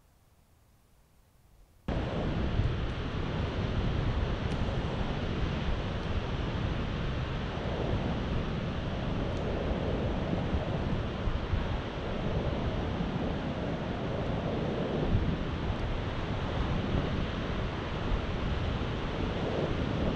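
Near silence for about two seconds, then strong wind blowing on the microphone over surf breaking on the shore below, a steady loud noise.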